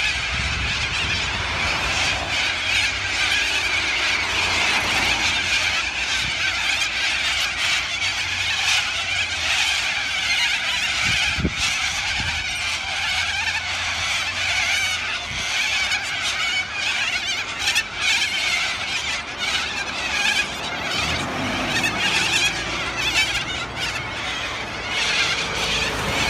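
A large flock of cockatoos screeching continuously, many harsh calls overlapping into a steady din.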